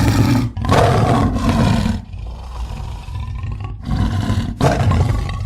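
Tiger roaring: a loud roar for about two seconds, a quieter low rumbling growl, then a second loud roar.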